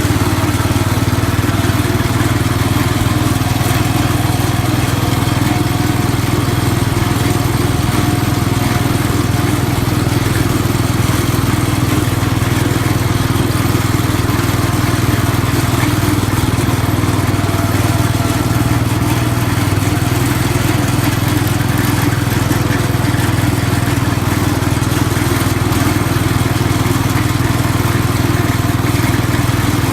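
1969 Cub Cadet 104 garden tractor's single-cylinder Kohler engine running steadily while the tractor is driven.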